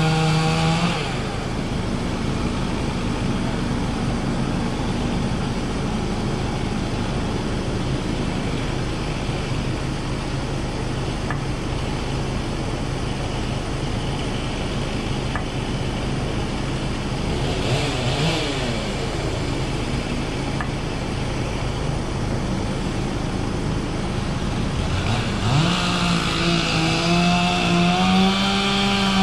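An engine running. It drops from a high pitch to a steady idle about a second in, revs briefly once in the middle, then revs up again near the end and holds high.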